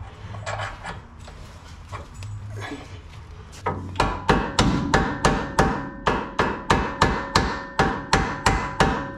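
Hammer blows driving a tight-fitting 2-degree caster bushing into the front axle of a Ford Super Duty. After a few light knocks, a steady run of hard strikes starts a few seconds in, about three a second, each with a metallic ring.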